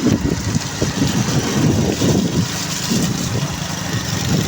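A car driving on a mountain road: a steady low rumble of engine and road noise.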